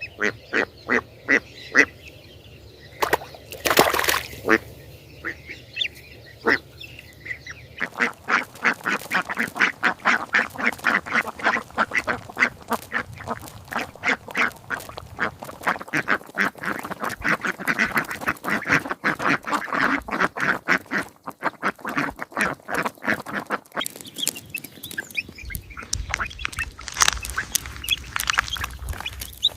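Ducks quacking: a few scattered quacks at first, then a long, fast run of many quacks, several a second.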